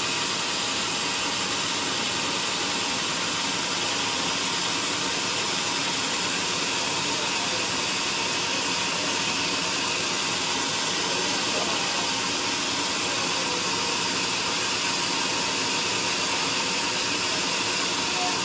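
Band sawmill blade cutting through a large joar log: a steady, unbroken hiss of the blade in the wood over the running mill.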